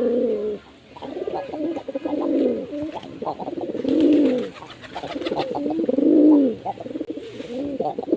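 Domestic pigeons cooing: a series of low, rolling coos that rise and fall, one phrase about every two seconds.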